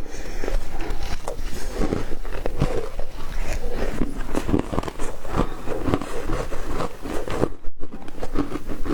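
Foam ice being bitten and chewed close to the microphone: a dense run of irregular crunches, with a brief pause near the end.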